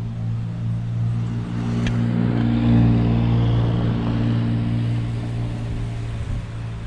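Heavy engine running steadily, growing louder about two to three seconds in, then easing off.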